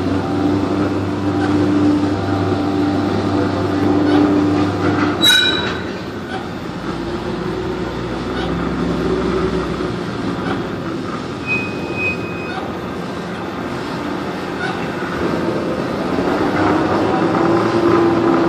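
Crane machinery working a hydraulic grab that holds a concrete tetrapod: a steady mechanical drone with held whining tones. A single sharp metallic clank rings out about five seconds in.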